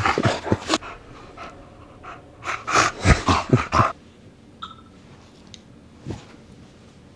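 Bulldog snorting and panting in quick, loud huffs while playing: one run at the start and another about two and a half seconds in, then only faint breaths.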